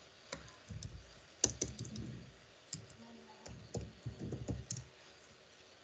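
Computer keyboard being typed on: single key clicks and short irregular runs of keystrokes.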